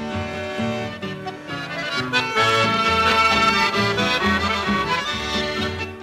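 Instrumental chamamé led by accordion: a melody in held, reedy chords over a rhythmic pattern of repeated bass notes.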